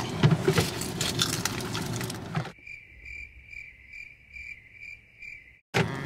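Car-cabin rumble and rustling, then the cabin sound cuts out about two and a half seconds in. A clean, high chirp pulses about two and a half times a second for some three seconds: an edited-in sound effect. Cabin noise cuts back in just before the end.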